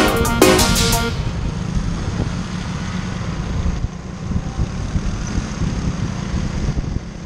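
Electronic music with a beat that cuts off about a second in, then the steady running of a motor scooter ridden along a road, with wind rumbling on the microphone.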